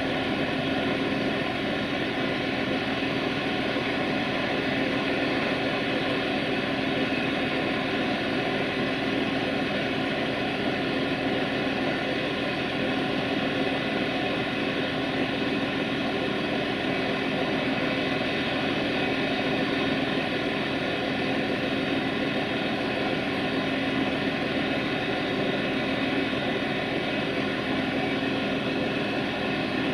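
Steady drone of a diesel railway engine idling close by, with a constant low hum that does not change.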